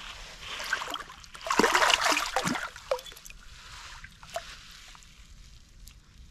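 Water splashing and sloshing, loudest for about a second from roughly one and a half seconds in, with plops and drips, then a few fainter drips.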